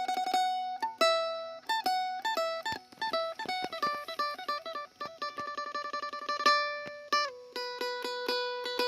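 Acoustic Isan phin, the Thai plucked lute, played solo: quick, repeated picked notes of a melody over a steady open drone string. The tone is clear and ringing.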